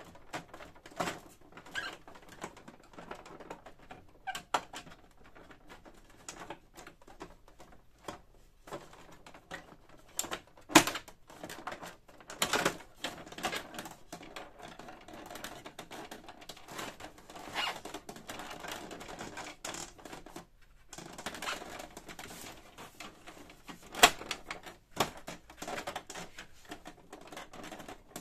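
Plastic housing and carriage parts of a Canon PIXMA MP-series printer being handled and worked apart by hand: irregular clicks, knocks and scraping of hard plastic, with two louder knocks, one about eleven seconds in and one about 24 seconds in.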